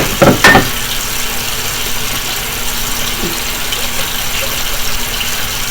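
Dishes clattering briefly near the start, then a steady rush of water from the kitchen tap during dishwashing, with a faint low hum underneath.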